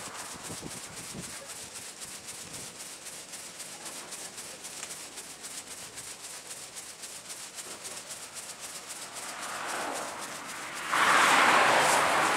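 Footsteps on a paved path played back sped up, a quick even shuffling of about five steps a second. About eleven seconds in, a louder rush of noise comes over them.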